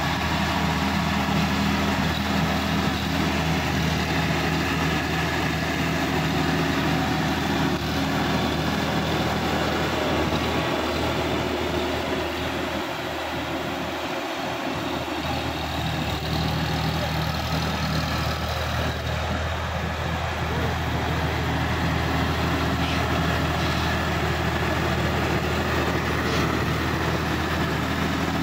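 Sonalika DI 50 RX tractor's diesel engine running steadily under load as it pulls a rotary tiller through flooded paddy mud. It dips slightly in loudness in the middle as the tractor moves farther off, then comes back up.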